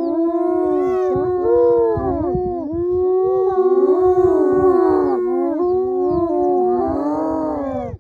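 A group of spotted hyenas calling at once: many overlapping, drawn-out whining calls that rise and fall in pitch. They break off suddenly at the end.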